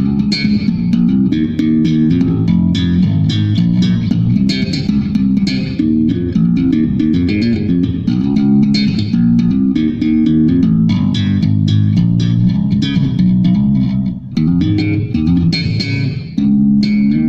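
Kramer 522s played in a sound test: a continuous run of plucked string notes, full in the low-mids with crisp attacks, dipping briefly about 14 and 16 seconds in.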